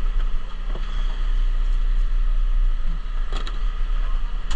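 Fishing boat's engine running with a steady low drone, with a couple of brief knocks near the end.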